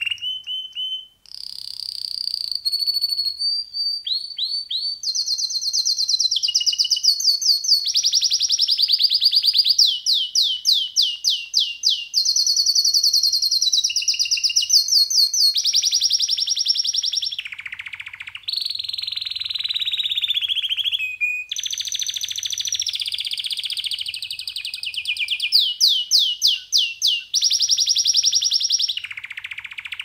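Canary singing a long, almost unbroken song of rapid trills. Each phrase is a fast run of repeated notes that shifts to a new pitch every second or two. There is a brief break about a second in, and twice the song swoops down in a falling note.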